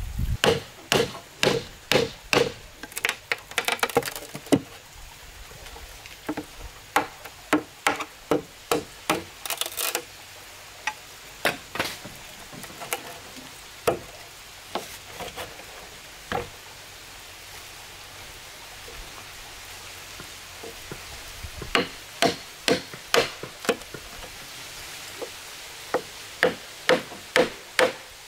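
Machete chopping notches into a green bamboo pole: sharp woody strikes in runs of about two a second, with a pause of a few seconds a little past the middle.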